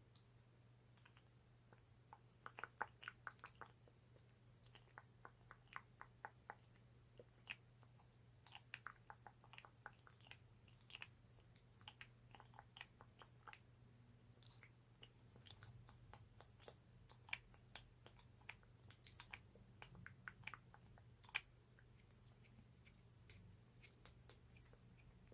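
Lip gloss tube being tapped and clicked, with many small, sharp clicks in quick irregular runs separated by short pauses. A faint steady low hum runs underneath.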